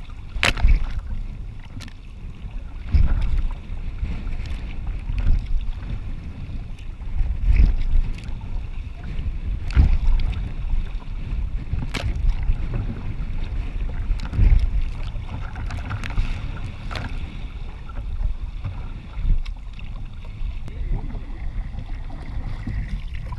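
Wind rumbling on the microphone of a sea kayak surfing downwind through choppy waves, with water splashing and slapping against the hull every few seconds.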